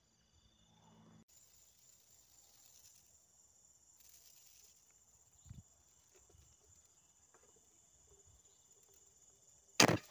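Night crickets trilling steadily in the grass, with a few faint soft knocks. Near the end comes a single loud, sharp crack.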